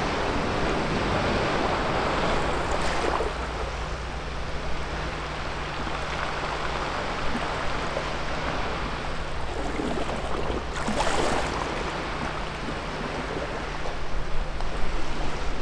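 Sea waves washing against a rocky shore, a steady wash with a louder surge about eleven seconds in.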